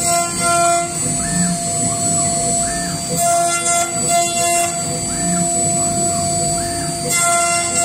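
CNC router spindle running at high speed, cutting shapes out of a wooden board: a steady high whine, with extra tones swelling in and out a few times as the bit works through the wood.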